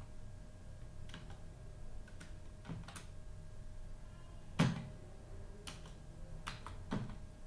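Computer keyboard keys pressed one at a time: about eight separate clicks, a second or so apart, the loudest about halfway through, over a faint steady hum.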